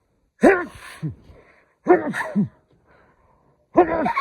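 A man sneezing three times in rapid succession, each a sudden loud burst about a second and a half apart: an allergy sneezing fit.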